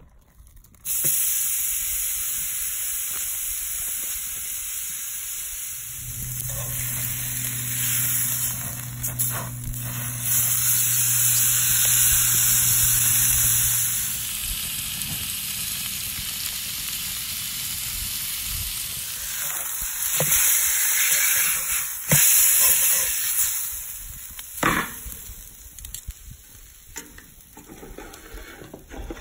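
T-bone steak sizzling on a very hot cast-iron griddle over a charcoal and oak fire. It starts loud about a second in as the raw steak goes down and keeps up a steady hiss, with a low hum underneath for several seconds in the middle.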